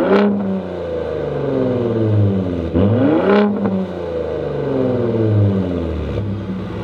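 Stock Gen 3 Ford Raptor's 3.5-litre twin-turbo EcoBoost V6, through its equal-length trombone exhaust set to Baja mode, revved twice from idle. Each rev peaks quickly, at the very start and again about three and a half seconds in, then falls slowly back to idle.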